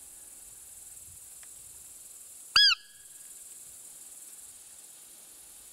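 A hand-held roe deer call sounded once about two and a half seconds in: a single short squeak that rises and falls in pitch, imitating a roe doe to lure a buck. A steady high hiss of insects runs underneath.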